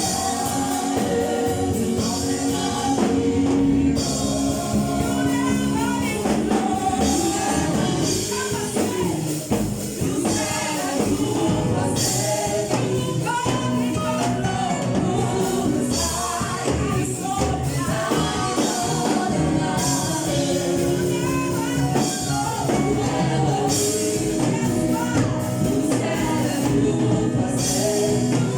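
Church choir singing a gospel song with live band accompaniment and steady percussion.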